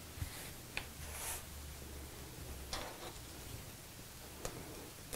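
Faint handling of cotton fabric and ribbon as pins go in: a few light clicks and short rustles.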